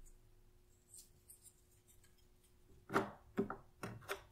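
Cardboard jigsaw puzzle pieces being handled and pressed into place on a tabletop: a few faint ticks, then four or five sharper taps and clicks close together near the end.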